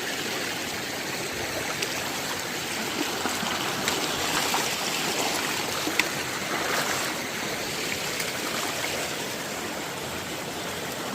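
Shallow stream rushing and babbling over rocks, with a few sharp clicks, the loudest about six seconds in.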